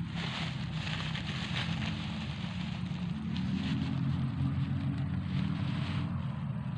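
Steady low drone of an engine or motor running without a break.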